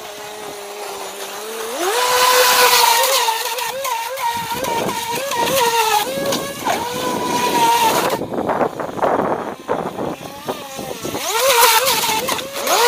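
Fei Lun FT012 RC racing boat's brushless motor and propeller whining under throttle, the pitch climbing sharply about two seconds in and wavering up and down with the throttle and turns, over a hiss of spray. The whine drops away for a few seconds past the middle, then climbs again near the end.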